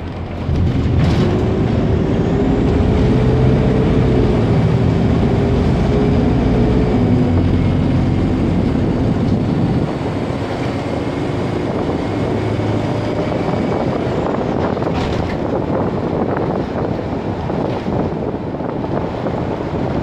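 Optare Solo SR single-deck bus under way, heard from inside: steady diesel engine and road noise. It gets louder about half a second in, with the engine note rising a little over the next few seconds, and eases slightly about halfway through.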